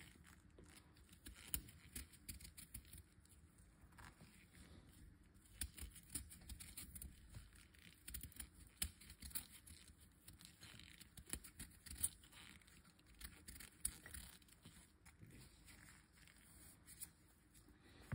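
Faint, irregular scraping and clicking of a small kitchen knife paring the skin off a fresh turmeric root.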